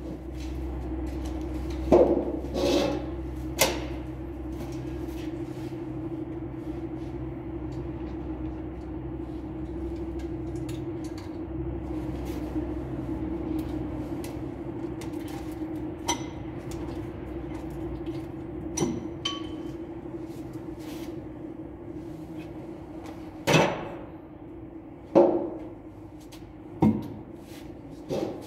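Hand tools and engine parts knocking and clanking against a JCB engine as it is worked on by hand during a top overhaul. The knocks are sharp and come at scattered moments, a few near the start and a cluster of louder ones near the end, over a steady background hum.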